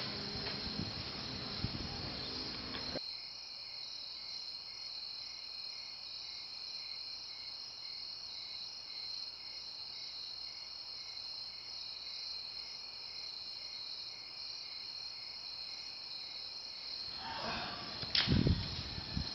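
Insects chirring in a steady, high-pitched drone with a faint regular pulse. About three seconds in, the lower background sounds cut out abruptly, leaving only the insects; near the end a few sharp thumps break in.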